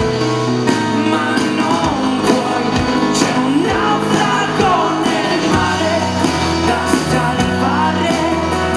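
A rock band playing live in an acoustic set: a male lead voice sings over acoustic guitar, bass and drums.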